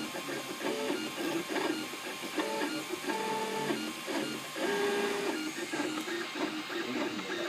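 Cubify 3D printer's stepper motors running during a print: a string of whining tones that jump to a new pitch every fraction of a second to a second as the print head moves.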